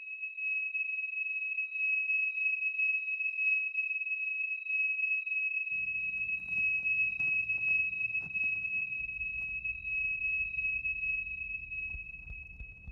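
A steady, high-pitched ringing tone held at one pitch, used as a film sound effect. About six seconds in, a low rumble of room noise with a few faint rustles and clicks comes in under it.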